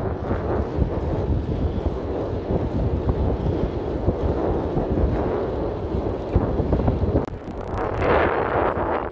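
Wind buffeting the microphone of a camera riding on a road bike, a steady rushing rumble that dips briefly and comes back stronger near the end.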